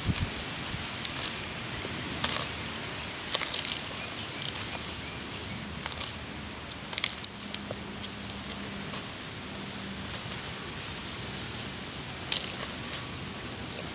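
Sulcata tortoise biting and chewing crisp lettuce leaves: irregular sharp crunches of tearing leaf, a second or more apart with longer pauses, over a steady faint hiss.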